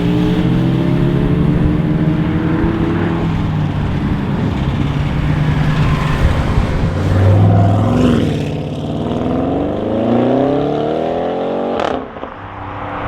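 Audi RS7 C8's twin-turbo V8 running loudly, its note dipping and then climbing steadily for about four seconds as it accelerates, ending in a sharp crack, after which the sound is quieter.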